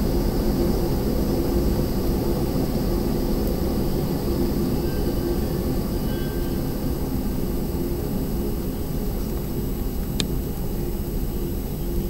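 Strong storm wind blowing steadily, a low, even rush without let-up. There is a single sharp click about ten seconds in.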